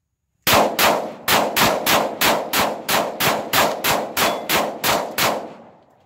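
Stock Glock 19 9mm pistol fired in a fast, even string of about fifteen shots, roughly three a second, each with a short echo.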